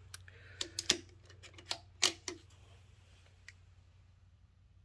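A run of small, sharp metallic clicks from a rimfire benchrest rifle action and dial indicator being handled on a steel mill table, about eight clicks in the first two and a half seconds and then quiet. A faint steady low hum runs underneath.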